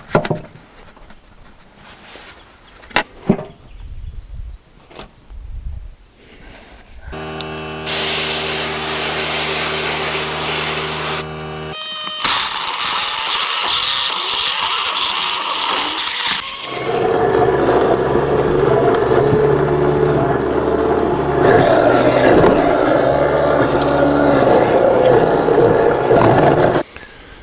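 Light knocks as food scraps are handled, then an electric food grinder's motor hums steadily for about four seconds and stops. A tap runs water onto the scraps with a hiss, and from about halfway the grinder runs again, louder, churning scraps and water until it cuts off just before the end.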